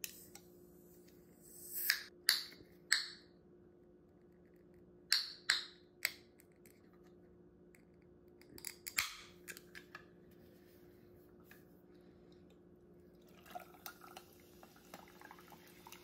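An aluminium can of sparkling water being eased open: several short, sharp hisses of escaping gas come in little groups over the first ten seconds as the tab is worked up. Near the end, fizzy water pours and crackles over ice in a glass.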